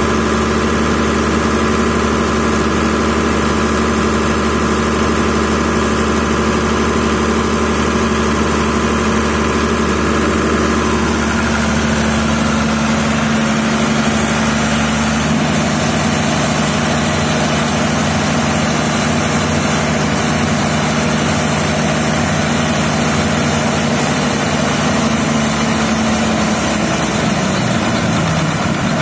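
Ford inline-six diesel engine of a generator set running steadily at its governed generating speed, the alternator holding about 49.4 Hz at 232 V.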